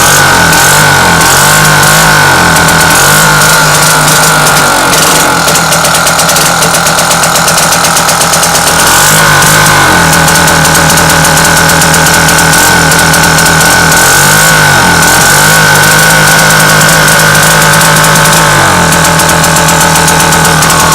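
British Seagull two-stroke outboard motor idling rough and hunting, its speed swinging up and down every second or two, then holding steadier for a few seconds before hunting again. The owner finds it will only run evenly with a very delicate adjustment of the ignition points.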